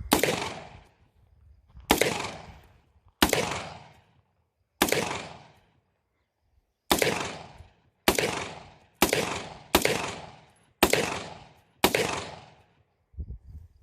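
Springfield Saint AR-15 rifle in 5.56mm fired semi-automatically from a 60-round drum magazine: about ten single shots, each trailing a long echo, spaced a second or two apart at first and then coming faster.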